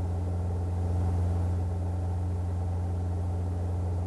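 Robinson R22 helicopter in a hover, heard from inside the cabin: the engine and rotors make a steady low drone.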